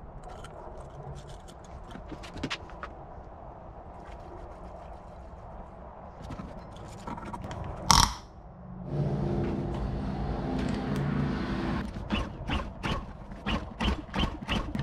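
Hands working the controls and fittings of a small inverter generator that is not yet running: scattered light ticks and handling noise, one sharp loud click about eight seconds in, and a quick run of clicks and knocks near the end.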